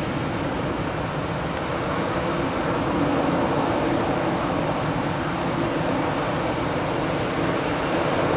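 Airbus A319 jet engines running with a steady whooshing hum and a few low steady tones underneath, growing a little louder about three seconds in and again near the end.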